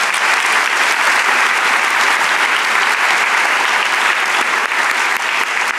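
Audience applauding steadily, many hands clapping, tapering off just after the end.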